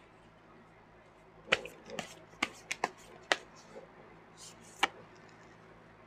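Tarot cards being handled: about seven sharp, irregular clicks and snaps between about one and a half and five seconds in, with a faint brushing sound near the end.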